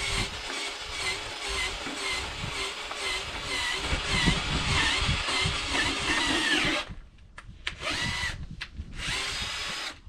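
Power drill turning an auger bit down into heavy clay soil. The motor's pitch wavers under load as the bit bites. It stops about two-thirds of the way through, then runs again in two short bursts as the bit is worked down in little bits.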